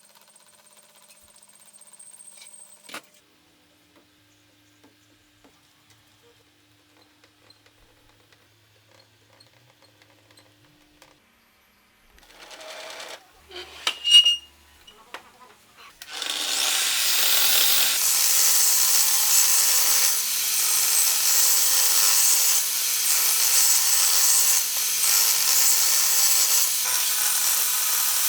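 An electric woodworking power tool starts a little over halfway through and runs steadily and loudly. Before it are quiet stretches with a few handling knocks, one of them sharp.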